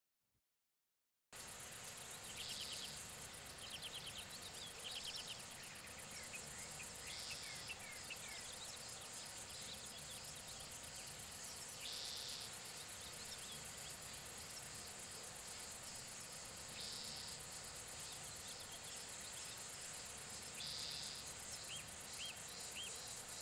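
Faint insect ambience: a constant high chirring, with a brief louder buzz every four to five seconds and scattered short chirps. It comes in suddenly about a second in, after silence.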